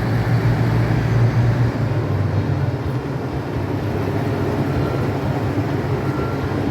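KiHa 85 series diesel railcar's engines running, a steady low drone.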